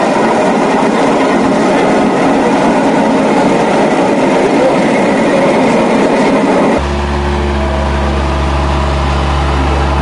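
Rumbling road and engine noise of a vehicle being driven. About seven seconds in it cuts off suddenly and gives way to a steady low hum of an engine or motor running.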